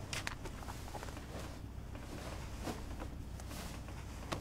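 Quiet room tone with a few faint short clicks and rustles, the clearest near the start and just before the end.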